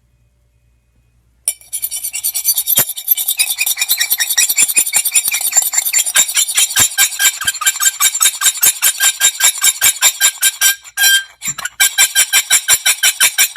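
Near silence for about a second and a half, then a hard object scraped rapidly back and forth across a hard surface: high-pitched scraping strokes, about five a second, with a brief break near the end.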